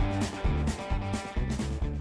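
Background music: guitar-led country-rock track with a steady beat.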